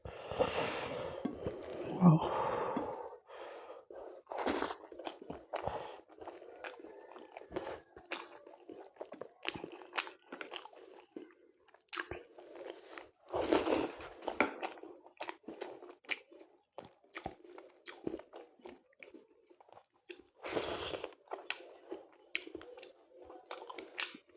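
Close-miked chewing of food, with many small wet mouth clicks and a few louder crunching bursts.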